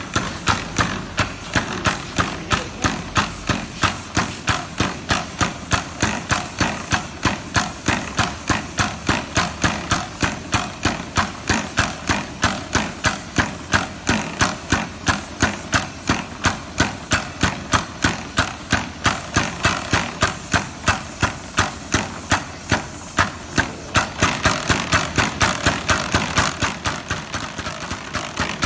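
ARO air-operated diaphragm pump running, its air exhaust pulsing in an even rhythm of about three strokes a second that quickens and grows louder near the end.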